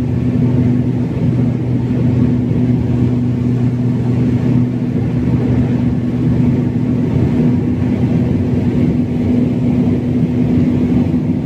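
Turboprop airliner's engine and propeller heard from inside the cabin beside the propeller: a steady drone with an even low hum that holds one pitch, on final approach to landing.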